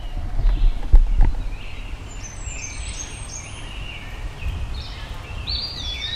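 Garden birds singing in short, repeated chirping phrases from about two seconds in, over a low rumble, with two short knocks about a second in.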